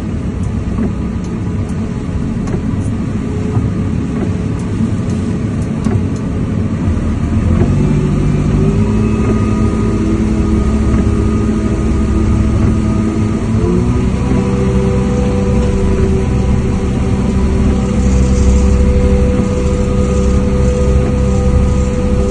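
An engine running steadily over a heavy low rumble, its hum shifting up in pitch twice, about a third and two thirds of the way through.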